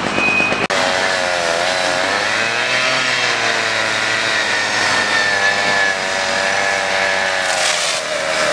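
An engine running fast and steady, its pitch wavering slightly up and down; the sound breaks off for an instant less than a second in, then carries on.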